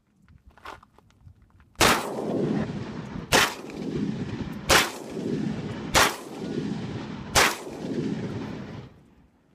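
Five shots from a Catamount Fury II 12-gauge semi-automatic shotgun, fired about one and a half seconds apart, each with a long rolling echo. The first shot comes nearly two seconds in.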